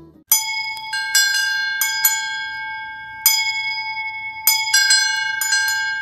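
A bell struck about a dozen times at irregular spacing, each strike ringing on with a clear high tone that slowly fades.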